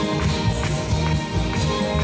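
Live band playing an instrumental passage of an upbeat pop song: electric guitars and bass over a steady beat, with regular percussion hits about twice a second.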